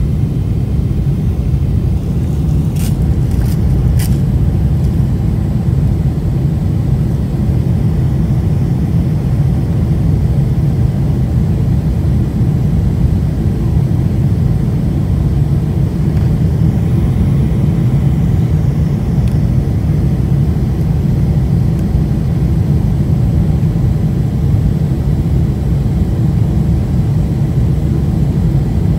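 Boeing 747 heard from inside the passenger cabin during the initial climb after takeoff: a loud, steady rumble of jet engines and rushing air. Two brief clicks about three and four seconds in.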